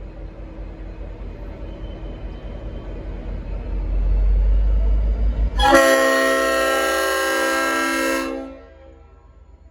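A low rumble grows steadily louder, then gives way about five and a half seconds in to one long blast of a Leslie RS5T five-chime locomotive air horn on a V/Line N class diesel, a loud multi-note chord held for about two and a half seconds, its lower notes trailing off briefly at the end.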